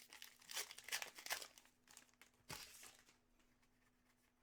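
Trading card packs and cards being handled: a run of crinkling, rustling wrapper sounds, then a single soft knock about two and a half seconds in.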